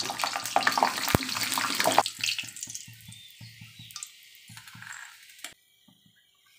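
Peanuts frying in hot oil in a wok, a loud sizzle that dies down after about two seconds and cuts off suddenly near the end.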